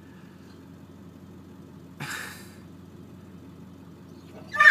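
Steady low hum of the car idling, a short breathy sigh about two seconds in, and near the end a dog breaking into a loud, high howling cry that wavers in pitch, distress at being separated from its owner.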